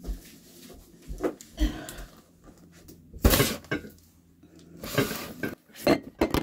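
Objects being handled, a run of irregular knocks and clatters, the loudest about three seconds in.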